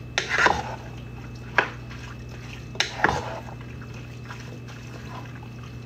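A spoon stirring chili in a pot, mixing in chili seasoning and water: several knocks and scrapes of the spoon against the pot in the first three seconds, with wet sloshing, then quieter stirring.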